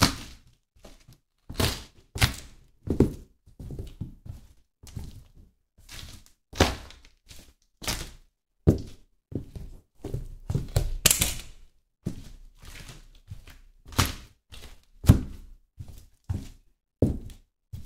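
High-heeled pumps stamping and treading on a pile of food on a metal checker-plate floor: irregular thuds and knocks about once a second, with a longer squashing, grinding stretch about ten seconds in.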